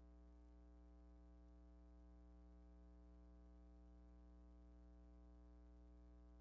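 Near silence, with a faint, steady low hum.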